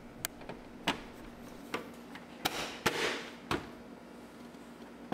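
Light, irregular plastic clicks and taps with a short rustle: the dash fuse panel cover of a 2003 Chevy Monte Carlo being handled and pushed back into place.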